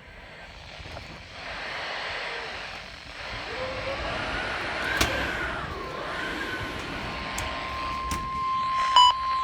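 Strong thunderstorm wind gusting in waves, with a sharp click about halfway through. About six seconds in a steady high alert tone starts, and two short loud beeps come near the end.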